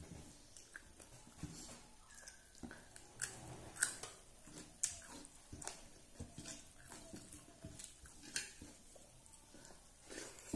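A person eating rice by hand from a metal plate: chewing and lip smacks, with scattered light clicks of fingers against the plate.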